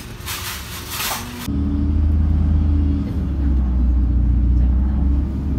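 Steady low engine drone of a city bus heard from inside the cabin. It starts suddenly about a second and a half in, after a brief bit of restaurant clatter.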